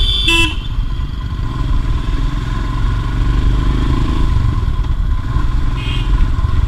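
A Royal Enfield Himalayan motorcycle engine runs while riding in traffic, with steady wind noise on the microphone. A vehicle horn sounds into the first half second, and a short horn toot comes near the end.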